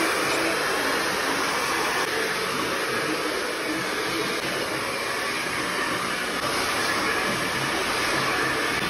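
Handheld hair dryer blowing steadily on hair as it is combed into a style after a haircut.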